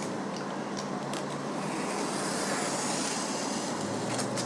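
Knife cutting into a Depron foam sheet: a scratchy hiss from about two seconds in, with a few light clicks earlier, over a steady room hum.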